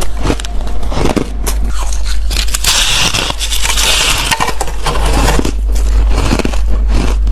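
Close-miked crunching of squeaky, fluffy ice being bitten and chewed: a rapid run of sharp crunches, with a denser, longer grinding crunch about three seconds in.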